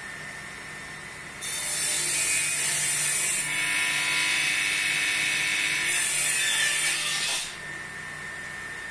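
Table saw running steadily, with a loud rasping cut through wood from about one and a half seconds in until it stops about seven and a half seconds in.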